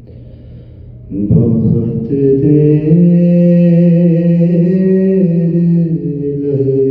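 A man's solo voice chanting a soz-salam elegy through a microphone. He comes in about a second in and holds long notes that step slowly up and down.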